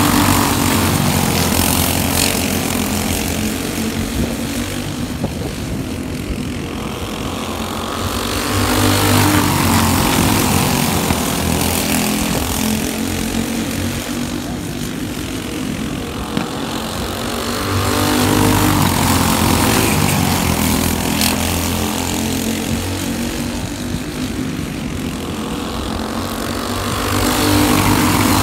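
Small go-kart engines racing on a dirt oval, a buzzing engine note that swells loud as the pack passes close and fades as it goes round the far side, about every nine to ten seconds, three times over.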